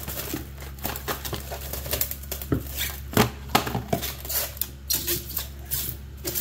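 Plastic cling wrap being pulled off its roll, torn off and stretched over a glass bowl: an irregular run of crinkling and crackling.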